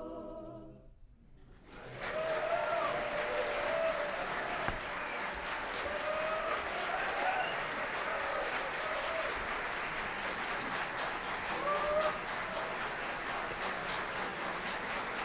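A men's a cappella chorus's final chord dies away in the first second, and after a brief lull the audience breaks into sustained applause with scattered whoops and cheers.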